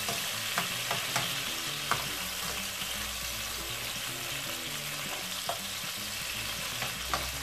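Chopped red bell pepper sizzling in hot oil in a frying pan, with occasional sharp clicks of a metal spatula against the pan as the pieces are turned.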